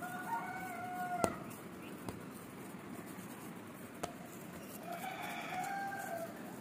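Two long, held calls from a bird in the background: one at the start and another about five seconds in, with two sharp clicks between them.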